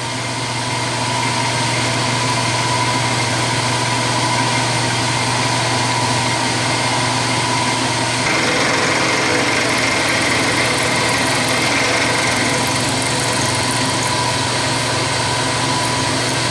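Vertical milling machine running as an end mill takes a semi-finishing pass of ten thousandths in 303 stainless steel. It is a steady machine hum, and its tone shifts about eight seconds in as a higher whine comes up and the low hum drops.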